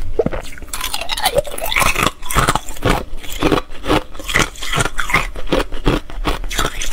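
Thin pieces of ice crunched and chewed close to the microphone: a dense run of sharp, crackly crunches, several a second.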